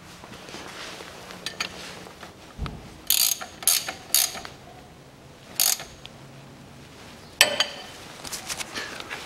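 Ratchet wrench tightening the fill plug on the front differential: a handful of separate sharp metallic clicks and clinks, with a cluster about three to four seconds in and the loudest click a little past seven seconds.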